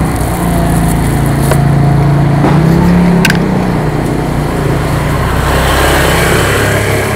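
Small motor scooter engine running close by, its pitch rising a little between two and three seconds in and then settling lower.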